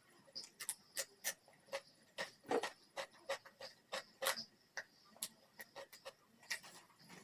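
Close-miked mouth sounds of eating: wet lip smacks and chewing clicks in an irregular run of several short smacks a second.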